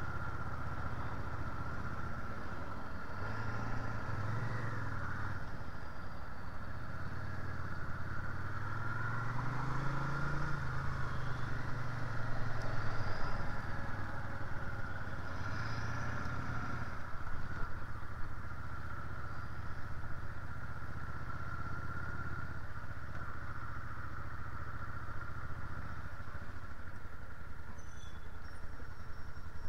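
Motorcycle engine running as the bike rides through traffic. Its pitch rises with the throttle about a third of the way in, is loudest just after, then eases back to a low, steady run as the bike slows and pulls up.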